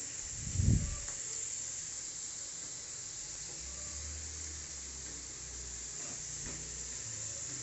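Potato fries sizzling steadily in hot oil on their second fry, with a dull thump under a second in.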